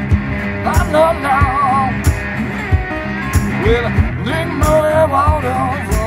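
Amplified resonator guitar playing an instrumental break, its notes gliding and wavering, over a steady low thumping beat.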